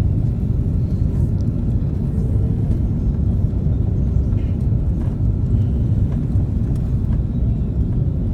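Steady low rumble inside the cabin of a KLM Airbus A330 airliner in motion around landing, from its engines and the air rushing past.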